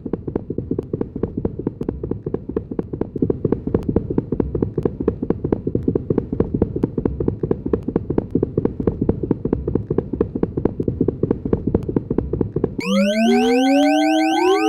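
Electronic soundtrack: a rapid, low pulsing buzz of evenly repeating clicks that cuts off suddenly near the end into several rising, gliding synthetic tones that sound like an alarm.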